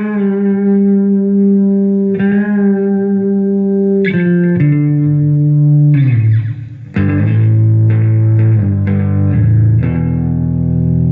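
Electric guitar on its bridge pickup, played clean with slapback delay through a vintage US Army tube projection amplifier with two 6L6 power tubes: held notes with vibrato, a slide down about six seconds in, a brief break, then ringing chords.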